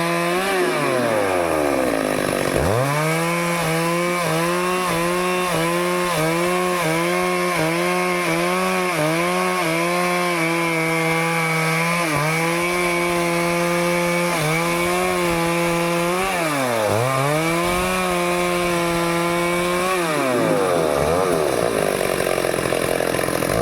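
Stihl chainsaw cutting into teak wood. The engine drops to a low idle near the start, then climbs back to full throttle and holds there under load with small regular dips. It sags and recovers a few times, falls to idle again about two-thirds through, and revs back up near the end.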